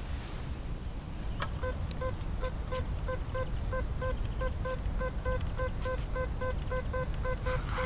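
Fisher F75 metal detector giving a quick run of identical mid-pitched beeps, about four a second, starting a second or so in: its response to a target it reads as a mid-40 signal. A steady low rumble and scattered sharp ticks lie underneath.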